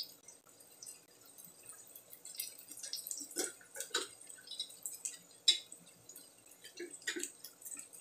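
Sliced onions frying in hot olive oil, giving off irregular small crackles and pops.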